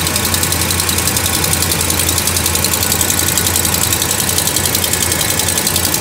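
Dodge Ram's Hemi V8 idling after a cold start, with a rapid, even ticking from the passenger side of the engine bay. The owner traces the tick to an exhaust manifold leak at broken manifold bolts.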